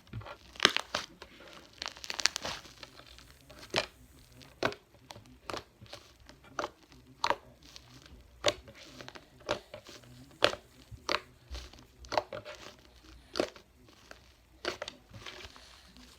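Fluffy slime being squished and stretched by hand, giving a string of sharp pops and crackles, roughly one a second.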